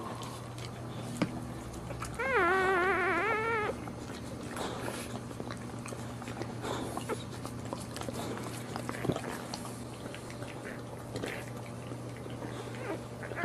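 A newborn Boxer puppy gives one wavering, high cry about a second and a half long, about two seconds in. Around it are faint mouthing and rustling sounds as the mother licks the puppies, over a steady low hum.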